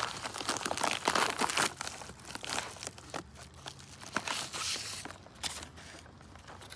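Yellow paper mailer envelope being torn open and crinkled by hand: dense tearing and rustling over the first couple of seconds, then fewer, scattered crinkles and taps as a cardboard box is pulled out.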